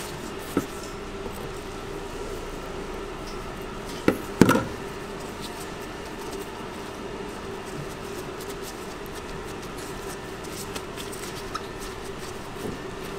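Steady hum of kitchen machinery, with a few knocks and taps as pork and cheese are handled on a plastic cutting board. The loudest is a quick double knock about four seconds in, with lighter ticks near the end.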